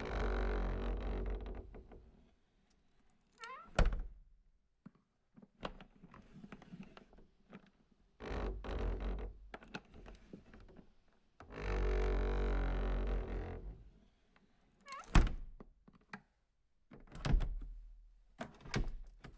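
A phone vibrating on a wooden surface: three buzzing rattles of about two seconds each, with shorter buzzes and several sharp knocks against the wood between them.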